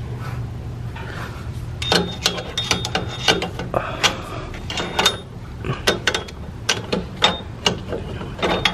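Irregular sharp metal clicks and clinks, some briefly ringing, as long-nose pliers work the drum brake's adjuster hardware and springs, starting about two seconds in. A steady low hum runs underneath.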